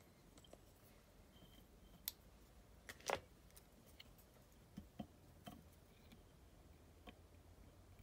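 Faint, scattered clicks and taps of small fly-tying tools being handled at the vise, over near silence. The two loudest come about two and three seconds in.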